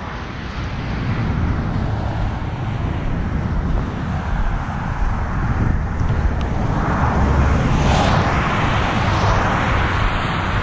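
Wind buffeting an outdoor camera microphone with a low, uneven rumble, while a small SUV rolls slowly past close by; the noise swells for a few seconds past the middle as the car is nearest.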